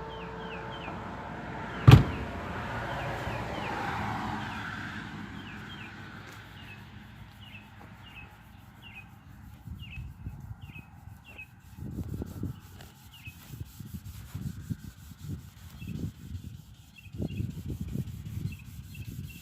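Sandpaper being rubbed by hand over the Civic's painted body in irregular strokes, coming more often in the second half. A single sharp click about two seconds in is the loudest sound, and short high chirps repeat throughout.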